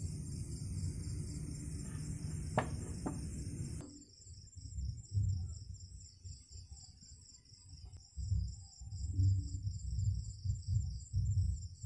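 Crickets chirping: a high, even pulsing trill of about four pulses a second, over an irregular low rumble.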